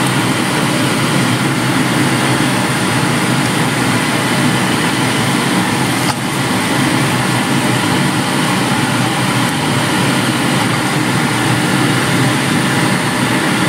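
Shredded chicken in soy sauce and vinegar sizzling in a hot nonstick frying pan as it is stirred with a silicone spatula: a loud, steady hiss.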